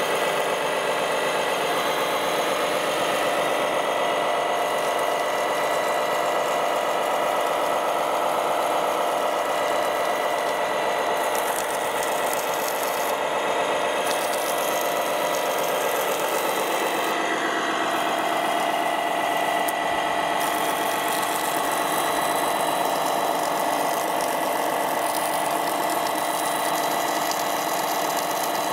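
Radio-controlled model fire truck's water pump running steadily while its roof monitor sprays a jet of water, a steady mechanical whine that drops a little in pitch about seventeen seconds in.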